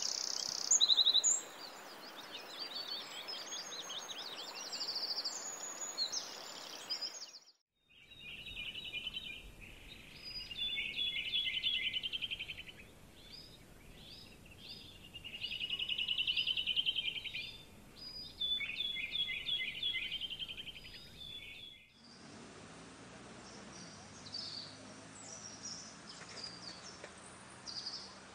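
Wild birds chirping and calling in three abruptly cut stretches. First come high chirps over a steady hiss, then repeated rapid trills lasting a second or two each, then faint high chirps over a low hum.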